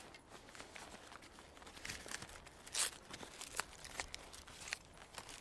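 Faint crinkling and rustling of a small object being handled, with scattered sharp clicks and a louder crackle about three seconds in.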